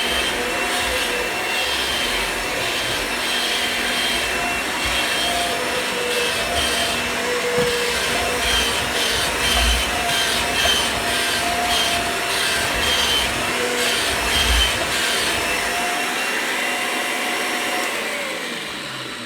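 Kirby G6 upright vacuum cleaner running steadily while it is pushed back and forth over a hard floor, its sound pulsing with each stroke. Near the end it is switched off and the motor winds down, its whine falling in pitch.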